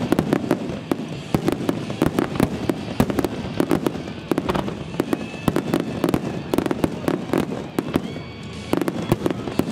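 Fireworks going off in quick succession: a dense run of sharp bangs and crackles, easing briefly near the end before picking up again.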